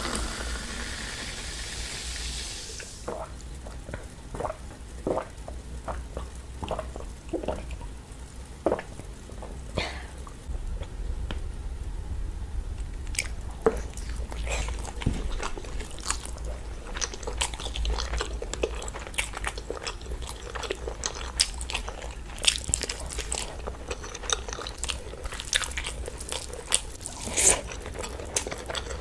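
Carbonated orange soda poured from a bottle into a glass, fizzing, for the first two seconds or so. Then close-up eating by hand: wet chewing, lip smacks and sticky finger clicks, irregular and busier toward the end.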